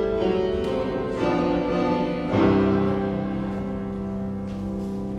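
Keyboard music playing slow sustained chords. A new chord comes in about two and a half seconds in and is held, slowly dying away near the end.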